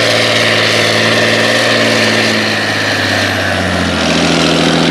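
John Deere 8520T track tractor's 8.1-litre engine running steadily under load while pulling a reel disk through the field, its engine note shifting slightly about three-quarters of the way through.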